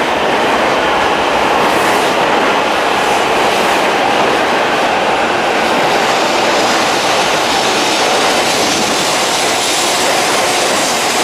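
E5 series Shinkansen train moving along the platform, a steady rushing noise of the train and its wheels on the rails.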